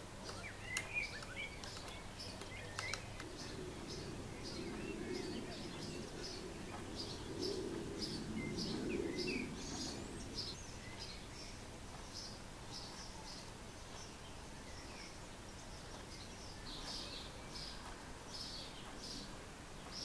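Great spotted woodpecker young calling from the nest cavity: a steady series of short, high calls about twice a second, the constant begging of a well-grown nestling. A few sharp clicks come within the first three seconds, and a low rushing noise rises and fades between about 4 and 10 seconds in.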